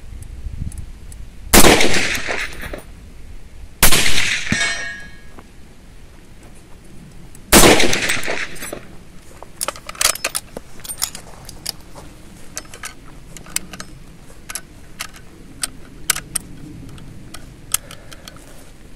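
Three shots from a US M1 carbine in .30 Carbine, fired a few seconds apart as sighting shots, each ringing out in an echoing tail. After them come light clicks and rattles of the carbine being handled.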